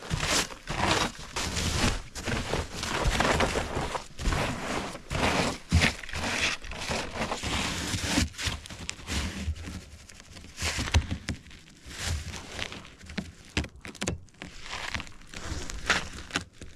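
Irregular rustling, crinkling and clicking of hands working a stuck windshield wiper blade and its new replacement, busier in the first half and sparser later.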